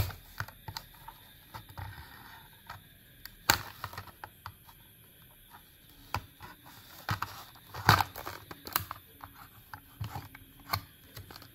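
Plastic blister pack of a Hot Wheels die-cast car being torn and peeled open from its cardboard card: irregular crinkles and clicks with a few sharper snaps, the loudest about three and a half and eight seconds in.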